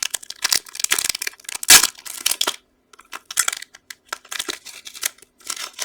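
Plastic trading-card pack wrapper crinkling and tearing as it is handled and opened, in irregular crackles with one louder crackle just under two seconds in.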